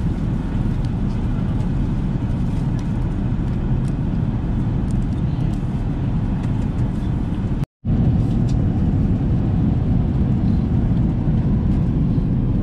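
Steady low rumble of an Airbus A380's cabin noise in cruise, heard from an economy seat, with a few faint light clicks. It cuts out for an instant about eight seconds in.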